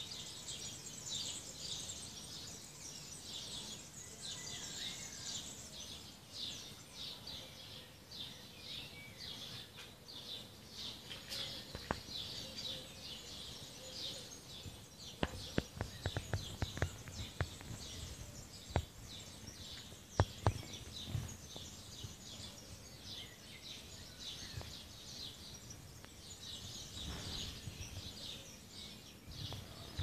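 Morning chorus of many small birds, a dense, continuous twittering and chirping. About halfway through there is a run of sharp clicks and taps lasting several seconds.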